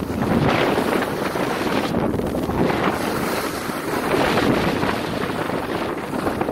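Wind rushing over the microphone of a skier's camera during a downhill run, mixed with the hiss of skis on groomed snow, rising and falling in waves.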